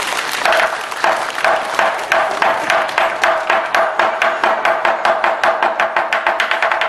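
Lion-dance festival drums and hand cymbals played together in a fast, even run of strikes that gradually speeds up, with a steady ring sounding under the beats.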